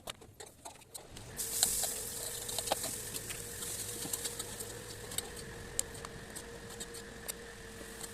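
Bread bites frying in hot fat: a sizzle that starts about a second in, with scattered crackles and pops over a faint steady hum.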